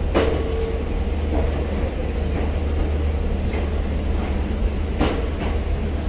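Sleeper-class passenger coaches of an express rolling slowly past on departure, with a steady low rumble. Sharp clanks come from the wheels just after the start and again about five seconds in.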